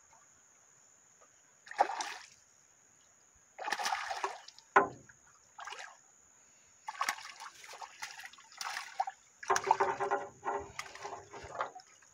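A hooked fish splashing and thrashing at the surface of a pond in irregular bursts while held on a fishing line, more often in the second half.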